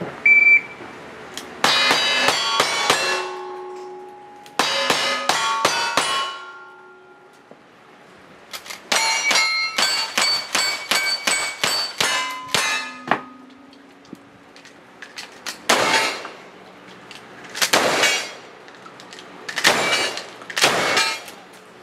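Cowboy action shooting string: quick shots, each followed by the clang and ring of a hit steel target plate. There are two fast strings of five single-action revolver shots, then about ten rapid lever-action rifle shots, then four slower, heavier shotgun blasts near the end. Every shot rings steel: the spotters call it a clean run with no misses.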